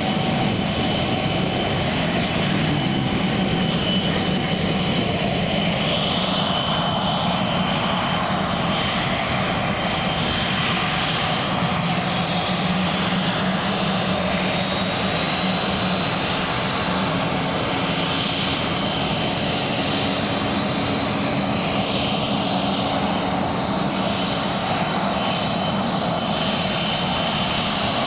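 Airplane engine running steadily at close range, a dense steady noise with a high thin whine that edges slowly upward in pitch.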